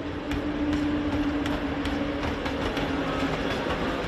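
A train rolling slowly: a steady hum with irregular clacks.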